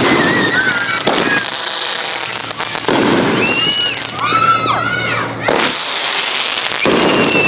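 Consumer fireworks going off: about five loud bangs one to two and a half seconds apart, with whistling effects that rise and fall in pitch between them.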